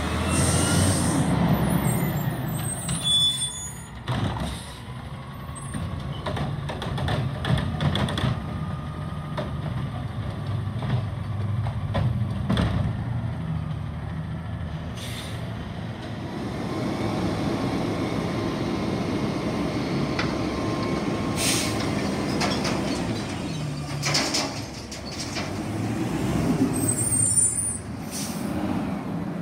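Garbage trucks working a trash route: diesel engines running, with scattered knocks and clunks from the lifting arms and carts, and air brakes hissing about a second in and again near the end.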